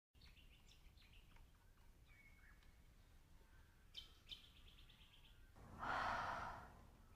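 A woman's loud, breathy exhale with her mouth wide open, lasting under a second, about six seconds in. Before it, faint outdoor quiet with a few short bird chirps.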